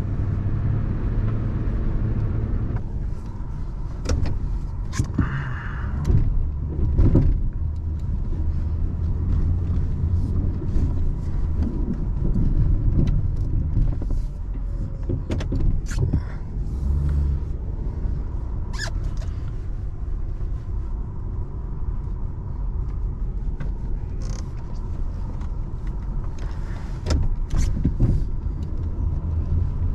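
Pickup truck engine running as it plows snow, heard from inside the cab. The hum rises and falls as the truck works back and forth, with scattered knocks and clicks.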